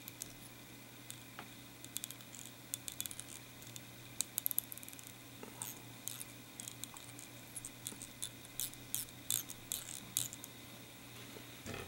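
Faint, irregular ticks and scratches of fly-tying thread being wrapped from a bobbin, binding a foam disc onto a hook held in a vise.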